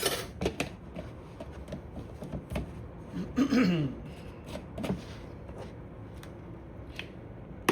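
Spoon clicking and scraping against a jar and bowl as minced garlic is scooped out and added: a series of short, sharp knocks, the busiest at the start. A brief murmur of a man's voice comes about three and a half seconds in.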